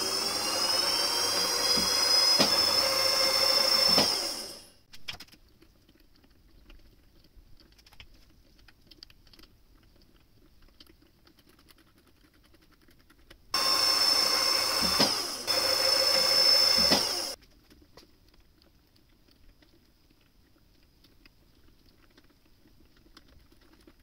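Bench mill-drill spindle switched on, its motor whine rising as it spins up and then running steadily for about four and a half seconds before stopping, with a couple of knocks along the way. After a quiet stretch of small clicks it runs again for about four seconds and stops.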